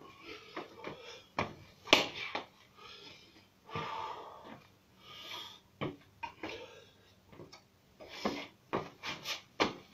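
A man's sharp, forceful exhalations in bursts during kicking practice, mixed with several sharp smacks and foot thumps, the loudest about two seconds in.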